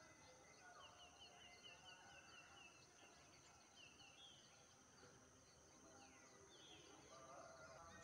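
Faint background birdsong from small wild birds. About a second in, one bird gives a rapid trill of short, high, falling notes lasting about two seconds, and shorter runs of the same notes follow later.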